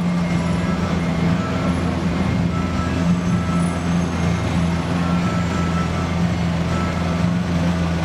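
Vehicle engines idling in stopped city traffic: a steady low hum that holds throughout, with faint higher tones above it.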